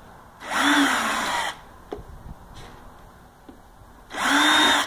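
Power drill driving wood screws, run in two short bursts of about a second each, its motor whine rising as it speeds up and dropping as it stops.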